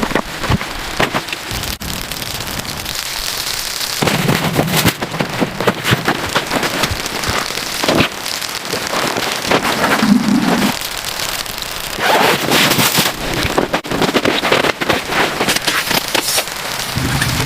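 Dense, loud crackling and pattering noise full of sharp clicks, swelling louder twice.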